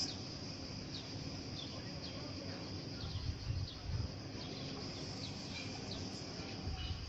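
Small birds chirping outdoors, short falling chirps repeating every half second or so over a steady high hiss, with a few low rumbles around the middle.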